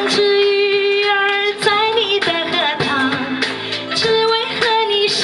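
A woman singing into a microphone with instrumental accompaniment, holding long notes.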